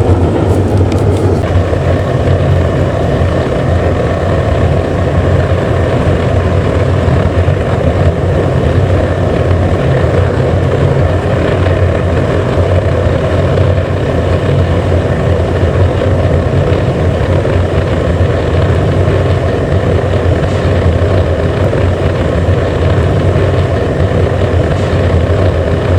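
Home-made metal-melting furnace running steadily while it heats a charge of aluminium, a loud, even rush with a low hum underneath.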